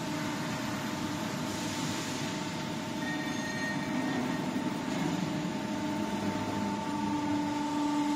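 Continuous fryer's electric motors running: a steady machine hum with several held whining tones.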